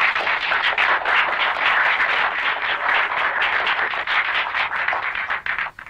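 A small group of people clapping their hands: steady, brisk applause that cuts off sharply near the end.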